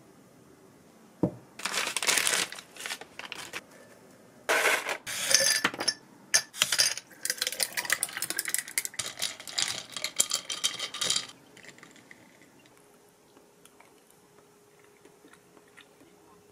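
Crinkling, rustling handling noise full of small clicks, in two spells: a short one beginning about a second in and a longer one from about four and a half to eleven seconds in.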